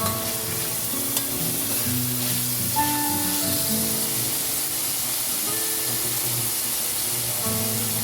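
Food sizzling steadily as it fries in hot oil, under background music with held notes.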